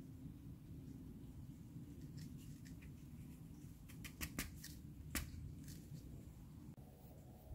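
Wooden skewer pushed into a raw apple: a few faint, crisp crunchy clicks, the sharpest cluster about four to five seconds in.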